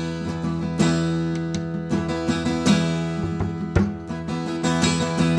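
Background music: acoustic guitar, plucked notes and strummed chords.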